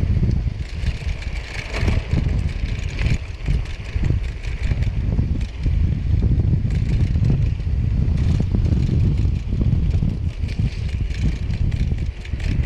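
Wind buffeting the microphone while riding a rough forest trail, with a steady low rumble and frequent rattles and knocks.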